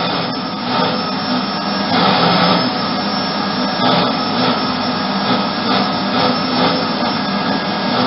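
Vacuum cleaner running continuously, a loud motor whir with a steady hum whose level swells and dips slightly.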